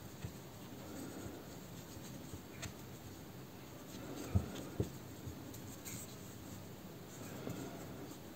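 Faint rustling and scraping of a metal crochet hook pulling cotton-blend yarn through stitches as single crochet is worked, with a few light ticks and two soft low knocks close together about four and a half seconds in.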